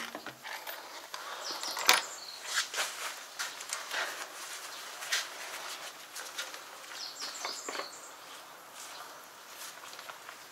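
Handling noises while refuelling a tractor: its fuel filler cap is taken off, and a plastic jerry can with a metal spout is picked up and brought to the tank. An irregular run of clicks, knocks and scraping, the sharpest knock about two seconds in.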